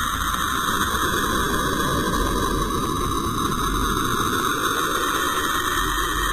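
A steady, even drone presented as the 'song of Saturn' space sound: a low rumble under a hissing band in the upper-middle range, with no beats or distinct events.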